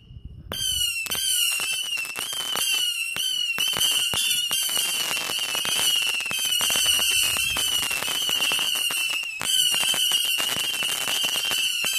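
A 750-shot firework firing small shots in rapid, continuous succession: a steady shrill whistle with falling whistles repeating about twice a second, over dense rapid pops. It starts about half a second in.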